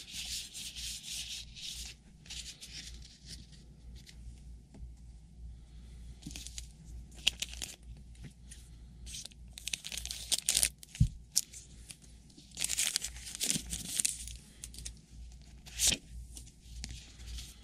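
Trading card pack wrappers being torn open and crinkled, with cards rubbing and sliding against each other: irregular papery crackling with several brief, louder tears.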